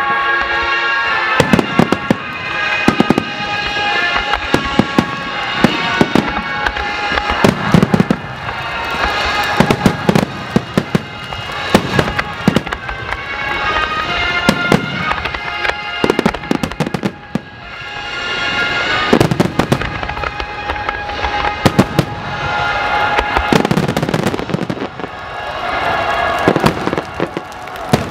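Fireworks display: many shell bursts banging and crackling in quick succession, with a short lull about two-thirds of the way through. Music with held notes plays underneath the bangs.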